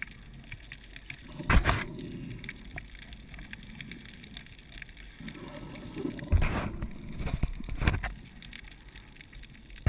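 Underwater sound of a scuba diver breathing through a regulator: loud bursts of exhaled bubbles about a second and a half in, at about six and a half seconds and near eight seconds, over a low steady underwater rumble.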